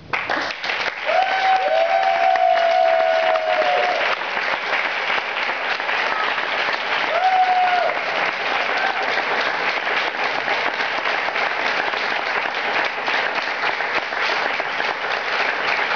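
Audience applauding, sustained and dense. A few drawn-out cheering shouts rise above the clapping about a second in and again around seven seconds.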